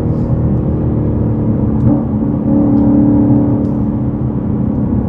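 Stage 3 Whipple-supercharged V8 of a Shelby Super Snake Mustang pulling hard under acceleration, heard from inside the cabin. The engine note dips briefly about two seconds in, then runs stronger.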